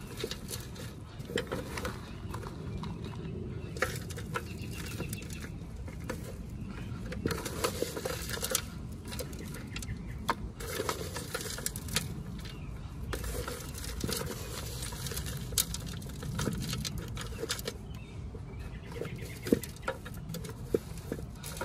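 Hands stirring and scooping a gritty potting mix of compost and small stones in a plastic pot: a steady rustling and scraping with many small clicks. A metal scoop scrapes through the mix near the end.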